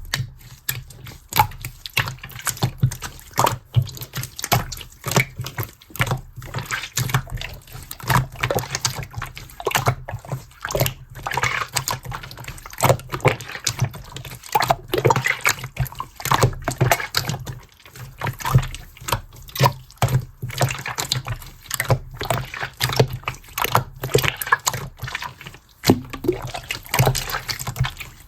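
Clear, transparent slime being squished and worked by hand, making irregular wet clicks, pops and squelches.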